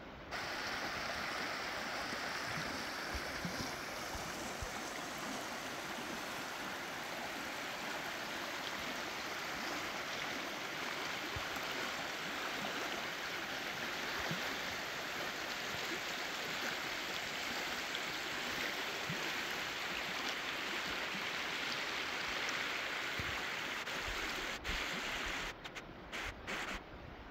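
Shallow, rocky mountain stream running over cobbles and riffles, a steady rush of water. Near the end the sound briefly cuts in and out a few times.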